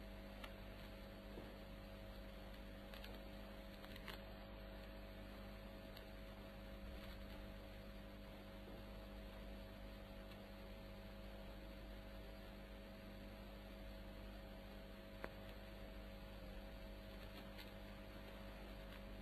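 Faint steady electrical hum and hiss of an old television recording, with a couple of faint clicks, the first about four seconds in and the second at about fifteen seconds.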